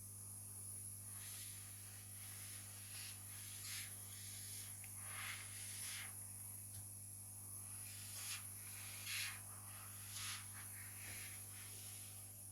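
Faint, short rustling and scraping strokes, about eight at irregular intervals, over a steady low electrical hum and hiss.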